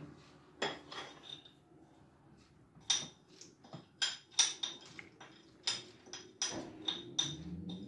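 A spoon clinking and scraping on a ceramic plate as roasted peanuts are tipped into the cup of an electric grinder: a string of separate sharp clinks, many with a short ring. A faint low hum comes in near the end.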